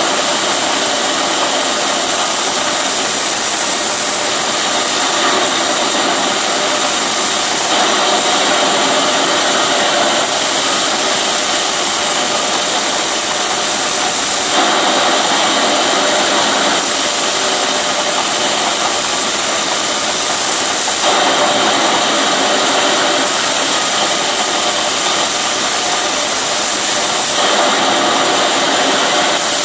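Band sawmill running with an SKS band-saw blade, a loud continuous machine noise with a steady high hiss. Its tone shifts every few seconds.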